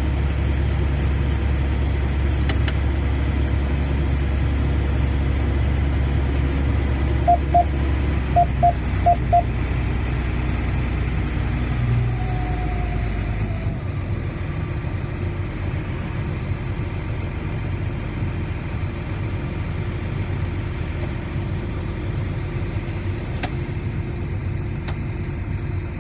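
Combine harvester engine running steadily, with a quick series of about six short electronic beeps about a third of the way in. Just past halfway the low engine hum drops away, leaving a lighter running sound.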